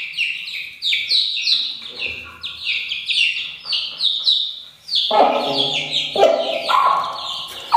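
Aseel chicks, about 20 days old, peeping loudly and continuously in a quick run of short falling chirps, about four or five a second. The speaker describes the chicks as frightened while their mother is held. From about five seconds in, lower, longer calls join the peeping.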